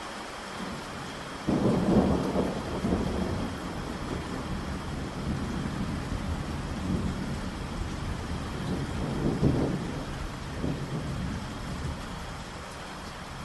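Steady heavy rain with a thunderclap breaking in suddenly about a second and a half in, then rolling thunder that swells again twice and dies away near the end.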